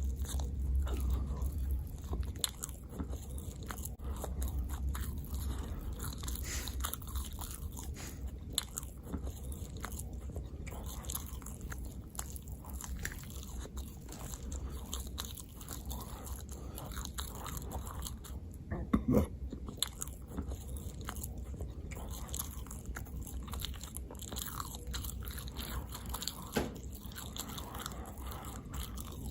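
Close-miked ASMR eating: a person chewing and biting food, with many small wet mouth clicks. There is one louder moment about two-thirds of the way through.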